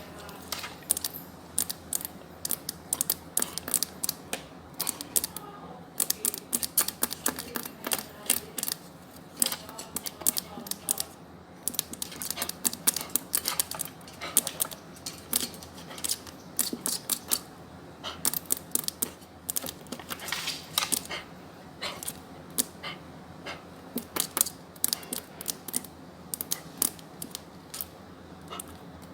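Long natural fingernails tapping on a hard surface: quick, irregular runs of sharp clicks with short pauses between them.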